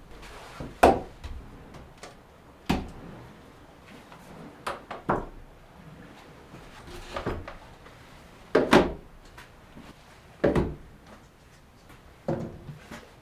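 Irregular knocks and clunks of wood in a small room, about eight over a dozen seconds, each a sharp hit one to two seconds after the last.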